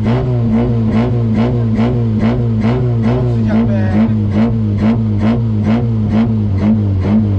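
Off-road competition vehicle's engine running while stationary, heard from inside the cabin, swelling in an even pulse about twice a second.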